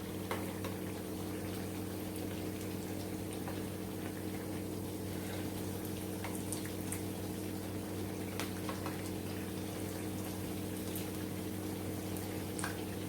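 Batter-coated banana fritters sizzling in hot oil, an even hiss with scattered small pops and crackles, over a steady low hum.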